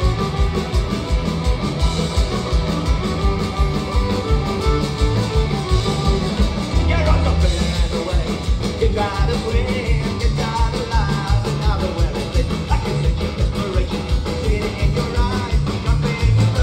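Folk-punk band playing live: electric guitars, fiddle and a steady driving drum beat, with a lead singer's voice coming in about seven seconds in.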